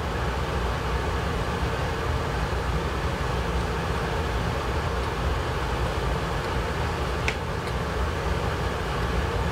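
Steady background hum and hiss of room noise, heaviest in the low end, like an air conditioner running, with one faint click a little past seven seconds.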